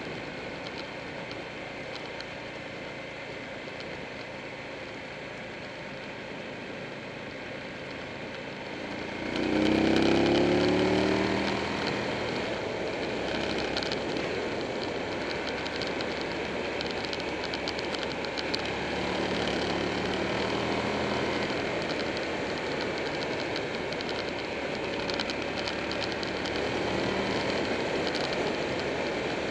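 Buell 1125R's V-twin engine and wind rush on a riding motorcycle. About nine seconds in, the engine is opened up and its pitch climbs sharply under acceleration, the loudest moment. It then settles into a steady cruise with a couple of smaller swells in revs.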